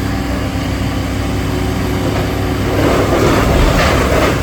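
An engine running steadily, and from about three seconds in a louder, crackling clatter of a building being knocked down and debris falling.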